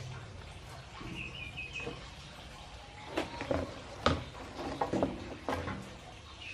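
A bird gives a short, rapid chirping phrase about a second in. From about three seconds on comes a run of sharp taps and knocks, the loudest about four seconds in.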